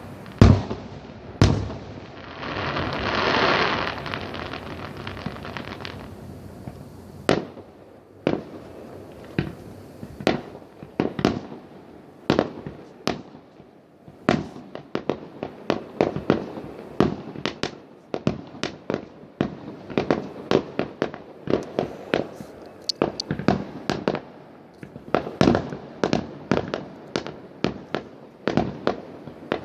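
Fireworks going off: a loud bang just after the start and another a second later, a hissing swell for a couple of seconds, then a dense, irregular stream of sharp firecracker cracks and bangs, several a second.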